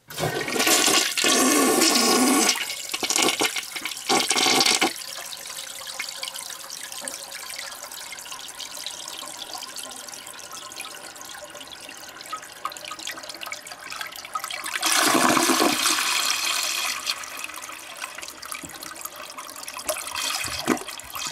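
Flush toilet flushing: a loud rush of water for the first few seconds, then steadier swirling and draining, with a second louder surge about three-quarters of the way through before it tapers off.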